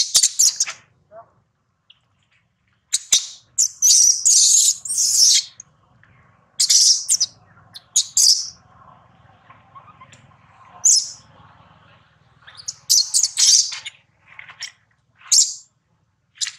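Newborn long-tailed macaque screaming in a series of short, high-pitched squeals, several in quick clusters with brief pauses between them, as its mother handles it roughly.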